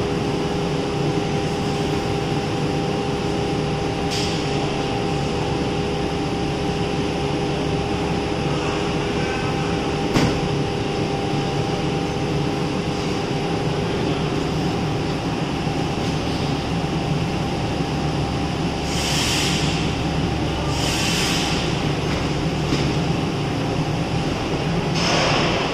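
Laminating line machinery for honeycomb doors running with a steady drone and hum. There is a single sharp knock about ten seconds in, and several short hisses near the end.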